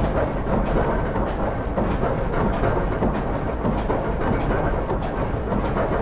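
Lister stationary engine running, its sound slowed down by slow-motion recording into a steady low rumble with a dense, irregular clatter of knocks.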